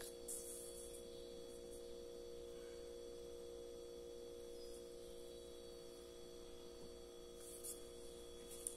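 Faint steady electrical hum made of several held tones, with brief soft scuffs about a quarter second in and near the end.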